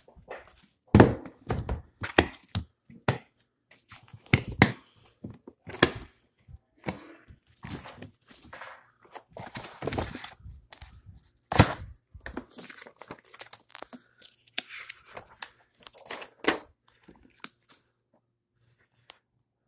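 Handling noise from a hard plastic Lokring tool case being opened and gone through: a run of sharp knocks and clicks mixed with rustling of the case's contents and papers.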